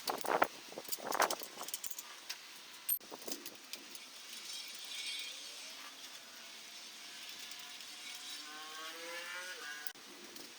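A car engine running, its note slowly rising and then dipping in the second half, after a few clicks and rattles in the first seconds.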